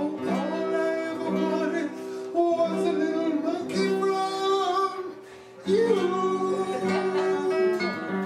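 A song: a voice singing over acoustic guitar.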